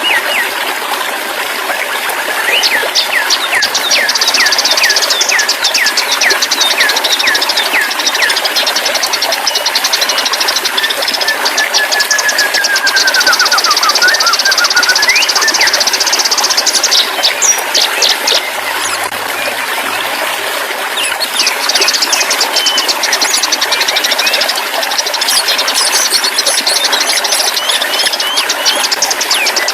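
Songbirds chirping, trilling and whistling over a steady rush of running water, with one long falling whistle about halfway through.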